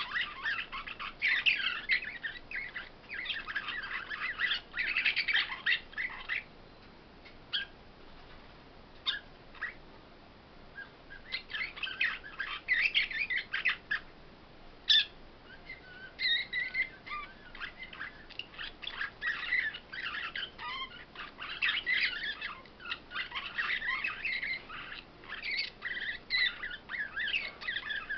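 Caged songbirds singing in bouts of rapid high twittering. The song breaks off about six seconds in, leaving only a few single chirps, and starts again near eleven seconds.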